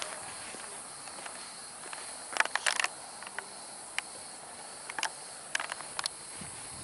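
Steady high-pitched drone of insects in dry summer heat, with a few short crunching footsteps on dry, gravelly ground, most of them in a cluster about two and a half seconds in and a few more toward the end.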